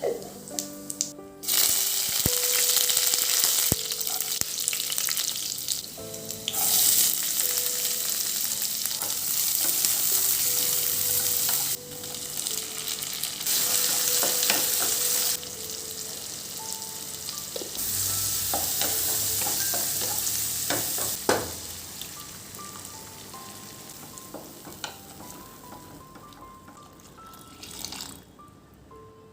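Food sizzling and frying in hot oil in a pan, in several stretches that start and stop abruptly, with a few sharp clicks of a utensil about twenty seconds in. Soft background music plays underneath and comes through as the sizzle fades near the end.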